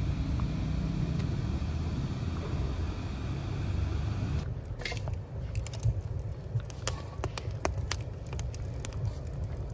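A large aluminium pot of beef broth at a hard boil with a steady low rumble. About four and a half seconds in, this gives way to a wood fire crackling, with scattered sharp cracks and pops as the burning logs are shifted with metal tongs.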